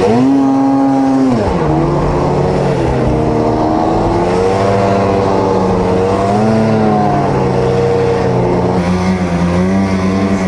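Polaris Switchback Assault snowmobile's two-stroke engine under throttle in deep powder. It revs up sharply at the start, drops back after a second or so, then rises and falls several more times as the throttle is worked.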